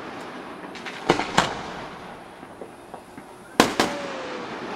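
Aerial firework shells bursting: two pairs of sharp bangs, one about a second in and one near the end, with fainter cracks between them.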